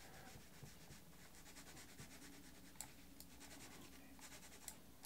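Near silence with faint scratching and a few soft clicks from a computer pointing device being dragged to paint a mask.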